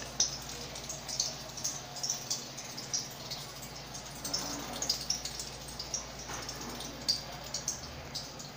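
Aerosol can of expanding polyurethane foam being dispensed through its straw: irregular soft crackles and pops as the foam sputters out, over a steady low hum.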